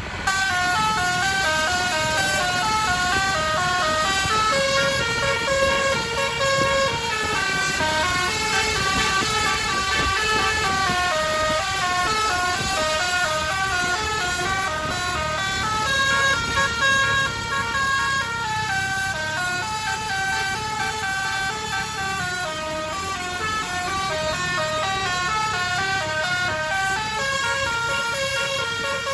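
Basuri-type telolet multi-tone air horn playing a long winding melody, its notes stepping up and down one after another in the 'mengular' style, over a low rumble.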